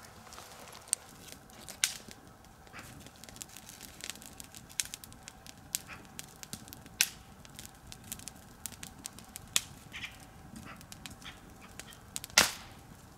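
Wood campfire crackling, with irregular sharp pops; the loudest pop comes near the end.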